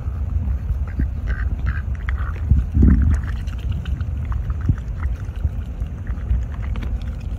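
White domestic duck giving a few short quacks, then dabbling its bill in a cup of water and peas, with small wet clicks and slurps, over a steady low rumble.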